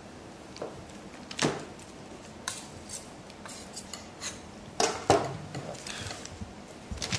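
Kitchen knife slicing fourme d'Ambert cheese: irregular light knocks and clinks of the blade on the board, the loudest a little after halfway.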